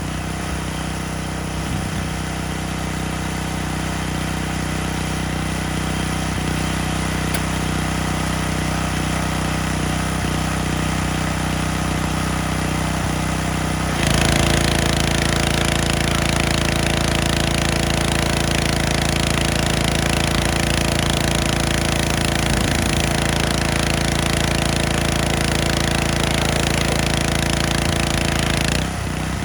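Small gas-engine pressure washer running steadily. About halfway through it gets louder, with a strong hiss of water spray, which lasts until just before the end.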